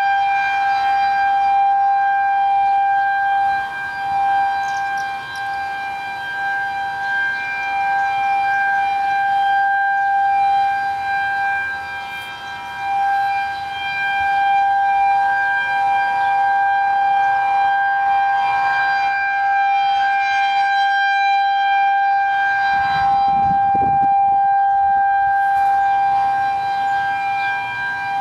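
Federal Signal 2001-130 rotating outdoor warning siren sounding a steady Alert tone, overlapping other civil defense sirens at slightly different pitches. The held wail swells and fades as the siren head turns.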